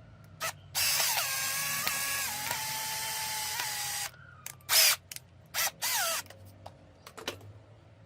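A small electric power-tool motor runs for about three seconds, its pitch stepping down partway through. Then come three short bursts, the last two winding down in pitch as the motor is let off.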